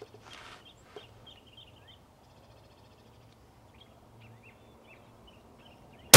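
Small birds chirping faintly over quiet outdoor air, with two faint clicks in the first second. Right at the end a custom 7mm Winchester Short Magnum rifle fires: one sudden, very loud shot that rings on.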